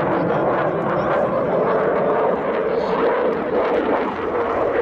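Dassault Rafale fighter jet in flight, its engines making a steady, loud jet noise with no let-up.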